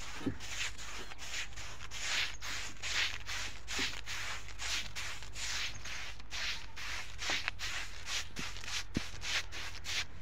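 Wide whitewash brush swishing lime wash onto a plaster wall in quick repeated strokes, a few a second.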